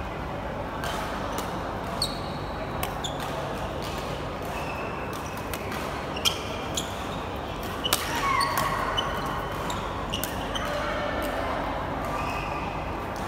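Badminton rally: sharp racket strikes on the shuttlecock every second or so, and short shoe squeaks on the court floor, over steady sports-hall background noise.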